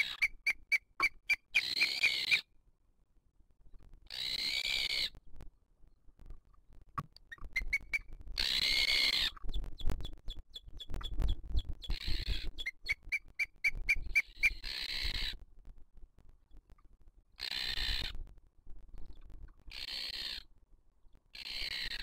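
Booted eagle calling: a series of loud, high calls, each half a second to a second long, repeated every two to three seconds, with quick runs of short thin notes between them near the start and around the middle.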